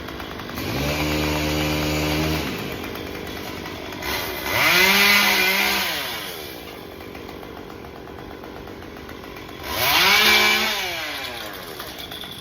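Two-stroke chainsaw running at idle, then revved up twice, the pitch climbing and dropping back each time, about four and ten seconds in.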